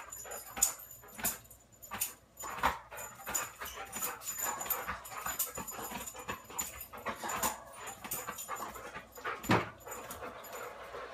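A dog whining and yipping excitedly as it jumps up at the screen, with many sharp clicks and taps through it and one louder knock near the end.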